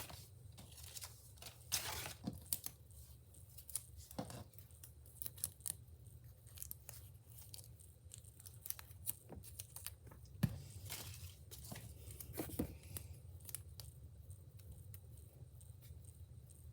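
Packaging being torn open and handled: scattered tearing, crinkling and rustling with sharp little clicks, coming in short spurts.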